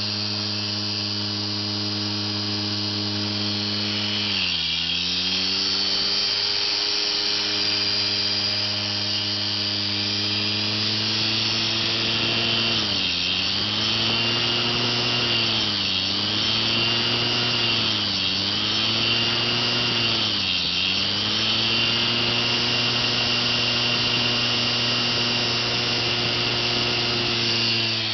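Opened hard drive's spindle motor spinning its exposed platter with a steady hum and a high whirr. Its speed sags briefly and recovers once about four seconds in, then four more times in quick succession in the middle. The pitch starts to fall right at the end.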